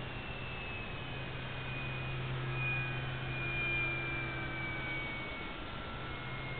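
Electric RC aerobatic model airplane (FMS Sbach 342) flying at a distance: the faint whine of its motor and propeller slowly drifts lower in pitch as it passes, over a steady low hum.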